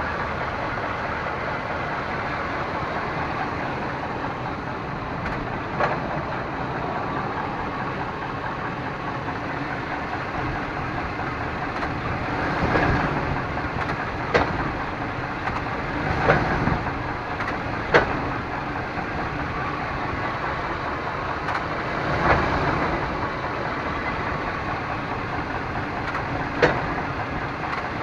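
Chevrolet Suburban's 5.7 L V8 idling steadily, with several sharp clunks from the driveline spaced irregularly as the automatic transmission is shifted between park and drive. The clunk on each gear change is the fault the owner is showing and cannot identify.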